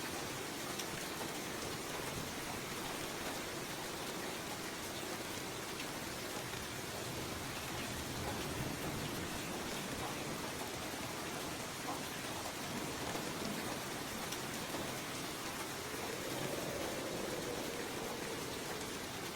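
Steady rain falling: a continuous even hiss of many drops, with a few sharper single drops and a slight swell in the lower rush near the end.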